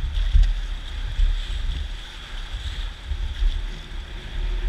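Whitewater rushing around an inflatable raft as it runs a rapid, with uneven low thumps of wind and water buffeting the microphone.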